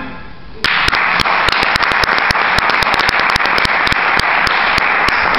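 Music fades out at the start, then about half a second in a small group breaks into steady applause, with individual hand claps standing out.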